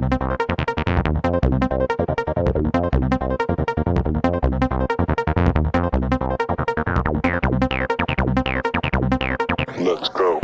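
Electronic dance music with a fast steady beat and synth chords, with a falling synth sweep near the end.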